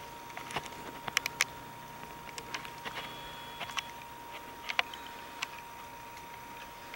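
Irregular light clicks and ticks from a handheld camera being handled and zoomed, over a steady faint high tone.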